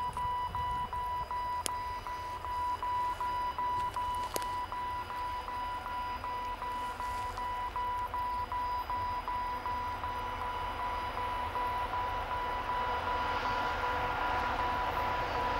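Railway warning signal sounding a steady high electronic tone, broken by short gaps about three times a second, announcing an approaching train. Under it, the distant 2TE25KM diesel freight train's rumble grows louder over the last few seconds as it nears.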